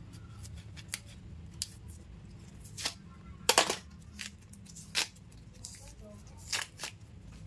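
Cassava root being peeled: a knife scraping and cutting into the tough skin, and the thick peel cracking and tearing as it is pulled off by hand. The sound is a scattered series of short, sharp scrapes and snaps, loudest about three and a half seconds in, over a low steady hum.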